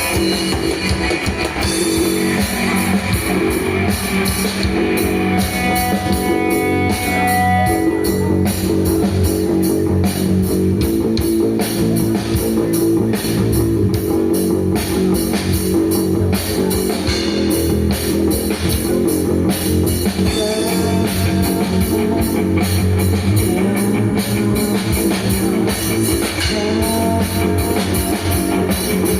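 Nu metal band playing live: distorted electric guitars, bass and a drum kit driving a heavy riff, instrumental with no vocals.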